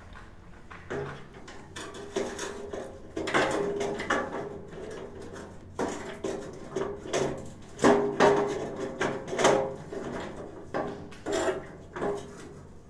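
Brass water-valve assembly of a gas water heater being handled and fitted back into place: irregular metallic clicks, knocks and scraping, some with a short ring, the loudest knocks in the second half.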